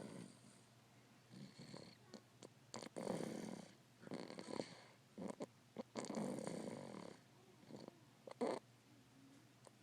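Snoring: slow, noisy breaths roughly every three seconds, with shorter sharp snorts and sniffs in between.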